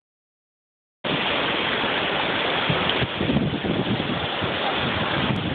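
Small waves washing over a sandy shore, a steady rush with wind buffeting the microphone in uneven low rumbles. The sound starts abruptly about a second in.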